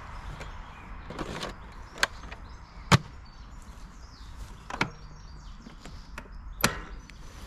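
Four sharp plastic clicks and knocks from handling the STIHL RMA 443 C battery lawn mower, the loudest about three seconds in and the last as the battery compartment is handled near the end. The mower's motor is not running.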